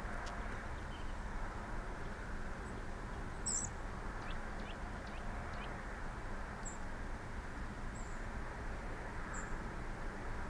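Small bird chirping: a quick high twittering call about three and a half seconds in, then single short high peeps every second or so near the end. Under it runs a steady outdoor rumble and hiss.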